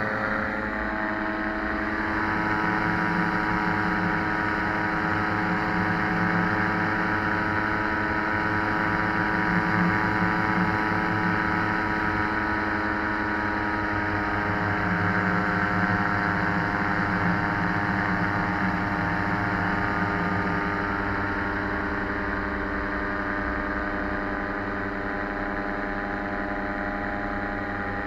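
Paratrike's engine and rear propeller running steadily in flight, one constant drone, a little quieter in the last quarter.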